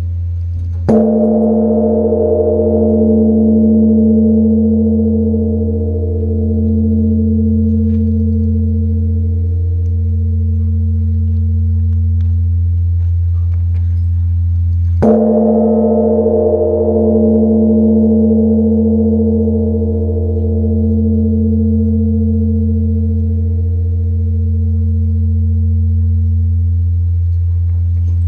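Large Korean Buddhist temple bell (beomjong) struck twice, about 14 seconds apart. Each stroke leaves a long, deep ringing hum that pulses slowly as it fades.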